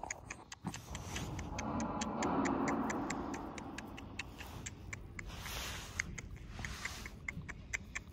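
Steady light ticking, about four ticks a second, over a rustling hiss that swells between about one and a half and three and a half seconds in.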